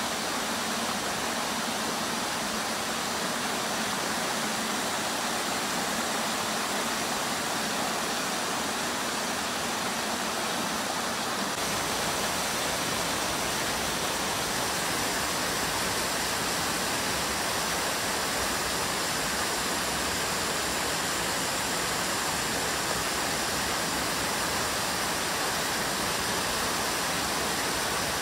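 Mountain brook cascading down a waterfall over rock ledges, a steady rushing of water. About eleven seconds in the sound grows fuller and deeper.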